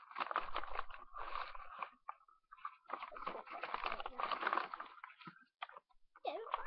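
Crackly, crunchy rustling right at the microphone in two stretches of about two seconds each, made of many fine clicks, with a few separate clicks near the end.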